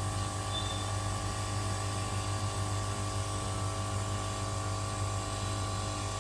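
Handheld hot air rework gun blowing steadily at an ECM circuit board with a constant low hum, heating a faulty voltage-regulator IC to desolder it.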